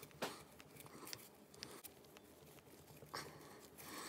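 Faint handling noise from gloved hands working a small engine's cylinder head while pulling out a valve: a few light metal clicks and brief rustles of glove against the head.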